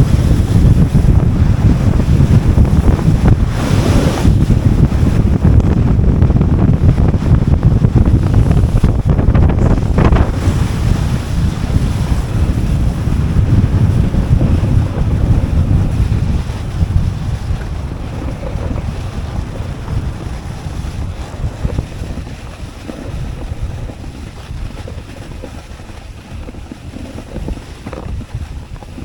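Loud wind buffeting the microphone of a snowboarder riding downhill, mixed with the board's rushing scrape over the snow. There are two brief harsher scrapes at about four and ten seconds in, and the noise eases off over the second half.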